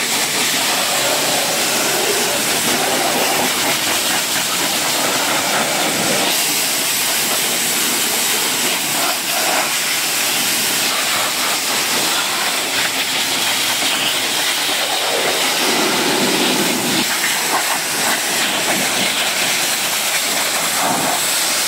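Pressure washer lance spraying a high-pressure jet of water onto a car's body and windows: a steady hiss.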